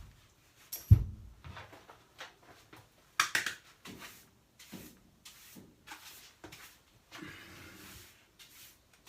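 Handling noises from metal dryer vent parts: a sharp thump about a second in, then scattered knocks, scrapes and rustling.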